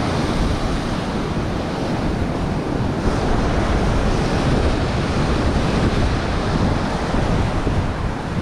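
Surf breaking on a beach, with strong wind buffeting the microphone.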